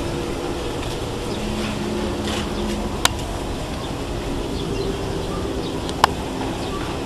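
Steady outdoor hum and hiss, with two sharp clicks about three seconds apart.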